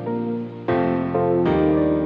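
Soft background music with sustained piano-like chords that change about two-thirds of a second in and again at about a second and a half.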